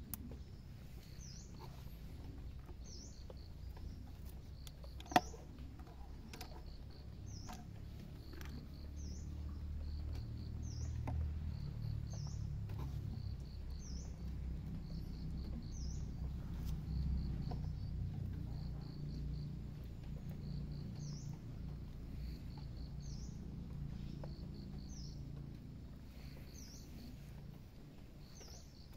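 A sharp click about five seconds in and a few lighter clicks from handling the scope of a rifle, over a high animal call that repeats about every second and a half: a short trill followed by a rising-and-falling chirp. A low rumble swells in the middle.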